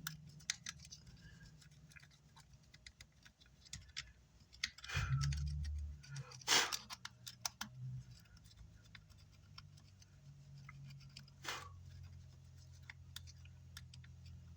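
Small metal hand tools clicking and scraping on an amplifier circuit board, scattered light ticks with a few louder scrapes, over a steady low hum.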